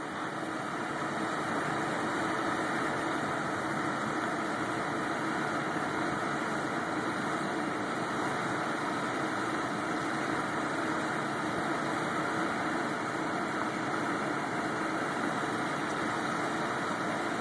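Steady rushing hum of rooftop ventilation equipment running, an even noise with no clear pitch that swells slightly in the first couple of seconds and then holds constant.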